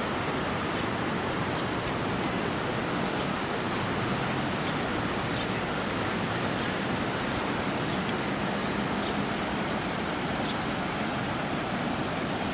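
Steady, even rushing of fast-flowing floodwater from a creek running high in flood.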